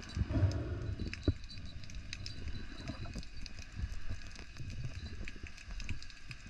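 Underwater sound heard through a diving camera: irregular clicks and crackles over a low rumble, with a louder knock about a second in.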